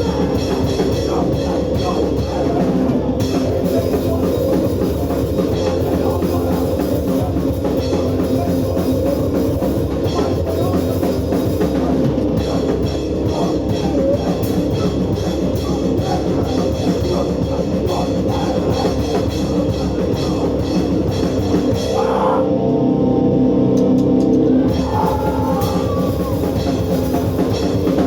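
Hardcore punk band playing live: fast drums with loud distorted guitar and bass. About 22 seconds in, the drums drop out for about two seconds while a guitar chord rings on, then the full band comes back in.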